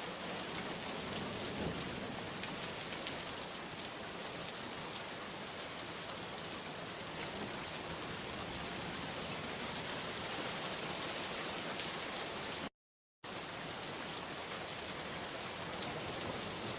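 Rain falling in a steady, even hiss. It cuts out to silence for about half a second near the end, then carries on as before.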